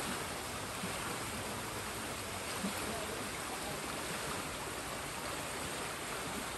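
Steady rushing of a fast-flowing river running over rocks.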